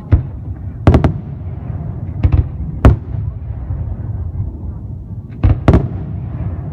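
Aerial fireworks bursting: sharp bangs in small clusters, about one a second or so apart with a gap in the middle, over a steady low rumble.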